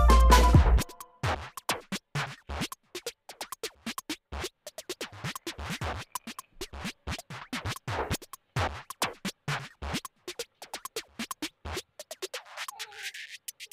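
Electronic music cuts off about a second in. Then come many short, irregular clicks and taps from a small plastic toy figure being handled, several a second, stopping near the end.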